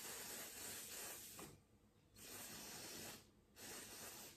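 Aerosol cleaner can sprayed through its straw nozzle in three hissing bursts: a long one of about a second and a half, a second of about a second, and a short one near the end.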